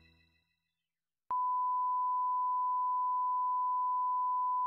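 Music fades out at the start. After a moment of silence, a steady test tone at a single pitch starts about a second in and holds unchanged: the reference tone that plays with colour bars.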